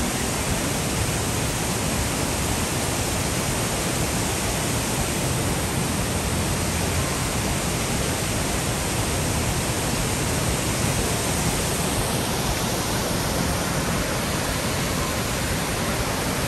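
Steady rush of water pouring over the Rhine Falls, a broad river waterfall.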